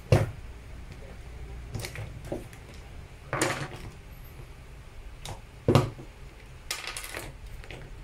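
Plastic housing and internal parts of a cordless drill knocking and clattering as they are pulled apart by hand and set down on a wooden bench: a few separate sharp knocks with softer handling noise between.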